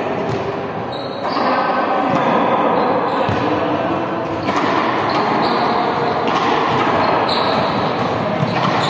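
Balls bouncing on a sports-hall court during a training drill, with repeated thuds and the odd short sneaker squeak, echoing in the large hall.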